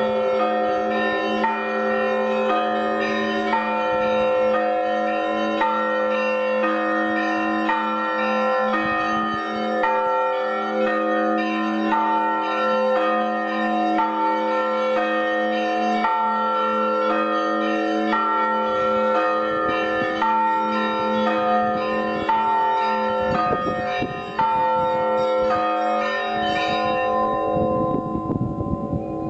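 Russian Orthodox monastery bells rung for the evening service: smaller bells struck in a quick repeating pattern over the steady hum of a deeper bell. Near the end the smaller bells stop and the ringing dies away.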